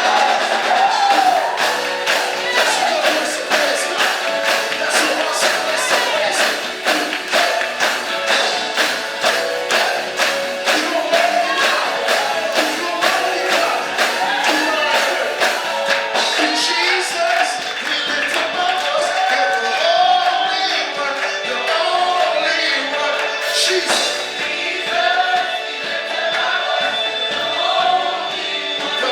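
Music with singing and a choir over a steady, quick percussive beat; the beat thins out about halfway through while the singing carries on.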